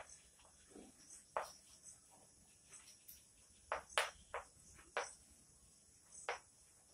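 Chalk tapping and scraping on a chalkboard as words are written, in short, irregular strokes, the loudest about four seconds in.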